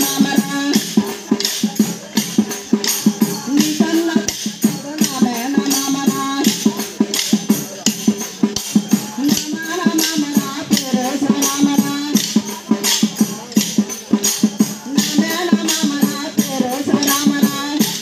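Kolatam stick dance: wooden sticks clacking together in a steady rhythm, about three strikes a second, over a sung folk melody with a steady drone beneath it.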